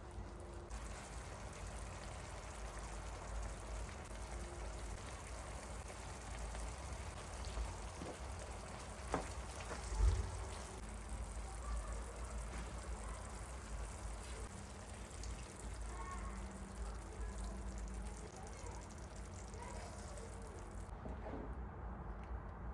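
Kitchen tap water running steadily, with a couple of knocks near the middle.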